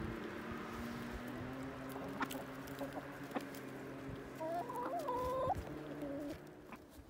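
A flock of hens clucking and murmuring close by, with one louder drawn-out call about four and a half seconds in.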